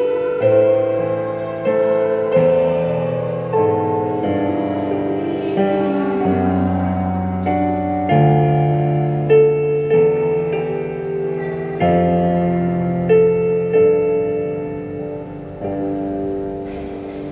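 Electronic keyboard played through a small floor speaker: slow, sustained chords struck about once a second, each fading before the next, over a moving bass line.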